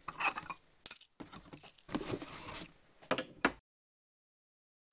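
Handling noises: irregular clinks and rustles of a magnet and the ferrocell's glass plates being moved by hand. The sound cuts off suddenly to dead silence about three and a half seconds in.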